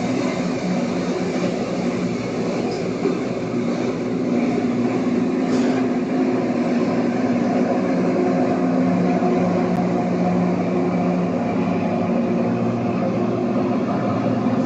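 Rail grinder train running on the track: a steady diesel engine hum under a dense, even rushing noise, a little louder from about four seconds in.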